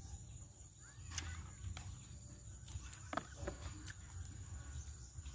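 Quiet outdoor background with a few faint clicks and smacks of eating, from chewing and from a utensil handling the roast pig head.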